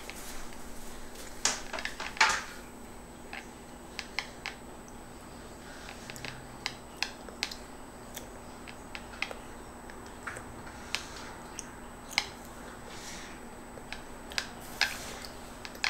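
Scattered light clicks and knocks of kitchen utensils and dishes being handled, at uneven intervals, over a faint steady hum.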